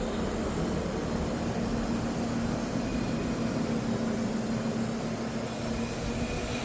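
Toshiba SMMS 8-ton heat pump outdoor unit running steadily: a constant rush of fan air with a steady low hum.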